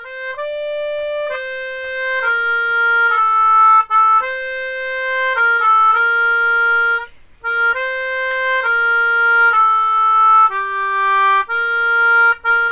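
Slow instrumental music: a solo melody of long held notes, now and then two at once, pausing briefly about seven seconds in.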